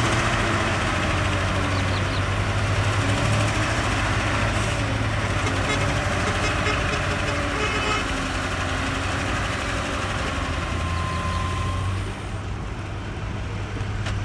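Heavy diesel earthmoving machinery running, a steady engine drone under a dense noisy rush. The rush eases off about twelve seconds in.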